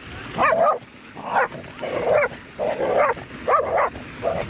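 A small dog barking about six times in quick succession. The barks are aggressive, given while it chases a mountain biker.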